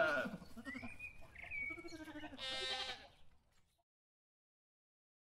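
Several bleating animal calls, short and wavering in pitch, with a couple of brief gliding squeaks between them. The sound cuts to complete silence about three seconds in.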